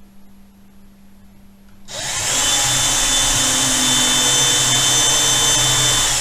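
Electric drill: quiet for about two seconds, then its motor spins up with a rising whine and runs steadily for about four seconds, starting to wind down at the end.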